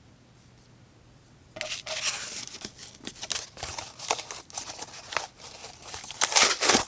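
CRKT Full Throttle folding knife's 8Cr13MoV steel blade cutting and tearing through cardboard. About a second and a half in, a run of irregular scratchy slicing strokes begins; the loudest come near the end.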